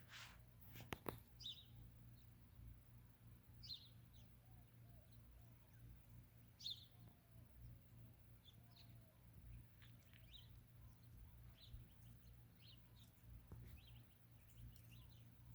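Faint desert birdsong: short, scattered high chirps from several birds over a low steady hum, with two sharp clicks about a second in.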